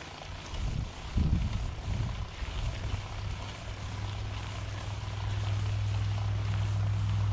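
Mountain bike rolling down a dirt trail, heard from a handlebar-mounted camera: a few low knocks from the bike over bumps in the first two seconds, then a steady low wind rumble on the microphone that grows louder about halfway through.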